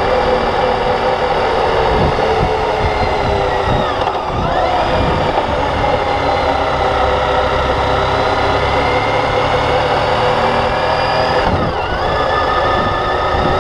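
Motorcycle engine running under way. Twice, about four seconds in and again near the end, its note dips briefly and climbs back.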